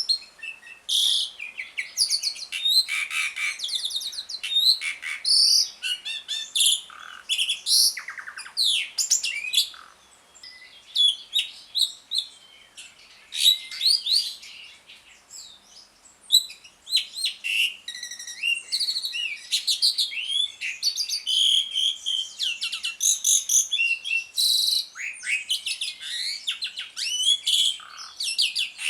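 Pied starling (jalak suren) chattering rapidly ('ngriwik'): a dense run of varied short whistles, trills and rasping notes, with brief pauses about a third and a half of the way through.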